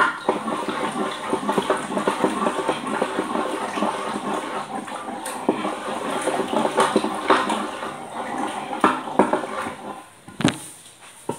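Cooked dal being mashed with a wooden-handled hand masher in a metal pan: a steady wet churning with many small knocks and scrapes against the pan, dying down about ten seconds in.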